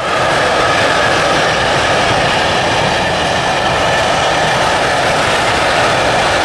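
Freight train of covered grain hopper wagons passing close at speed: a loud, steady noise of wheels running on the rails, with a steady whine in it.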